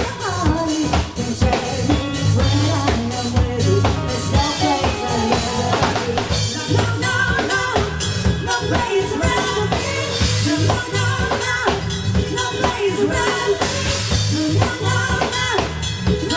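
Recorded pop dance music with a steady drum-kit beat (kick and snare) and a singing voice.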